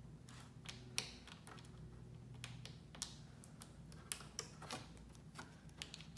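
Small, irregular clicks and taps of fingers and nails on the plastic parts of a Dell laptop as a keyboard ribbon cable is worked into its connector, the sharpest about a second in, over a faint low hum.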